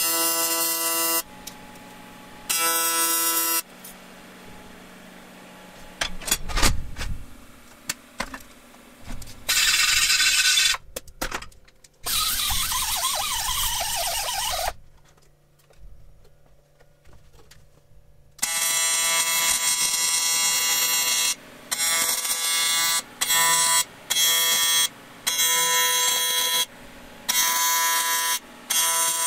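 AC TIG welding arc on aluminum buzzing steadily, struck in two short bursts at the start and then running most of the second half with brief breaks between welds. In the middle there are knocks and a falling whine.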